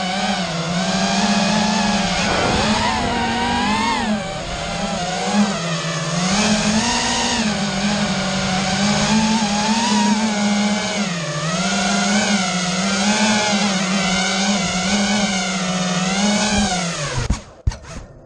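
Racing drone's electric motors and propellers whining in flight, the pitch rising and falling continually with the throttle. The motors cut off suddenly about a second before the end as the drone lands.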